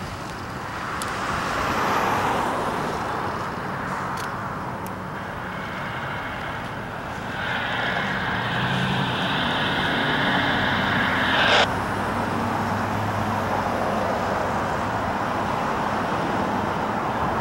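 CSX diesel freight locomotive approaching with its engine running, sounding one steady horn blast of about four seconds that starts about seven seconds in and cuts off sharply.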